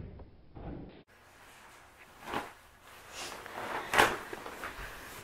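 Interior door being handled: two short knocks about a second and a half apart, the second louder.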